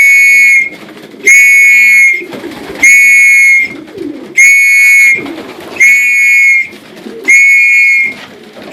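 A whistle blown in a run of long, steady, level-pitched blasts, one about every second and a half, six in a row with a seventh starting at the end: the kind of recall whistle a pigeon fancier blows to call his birds in to the loft.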